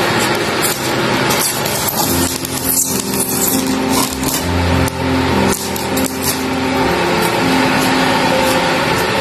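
Knife blade scraping and cutting along the taped lid seam of a styrofoam fish box, a run of scratchy scrapes and clicks for several seconds, over background music.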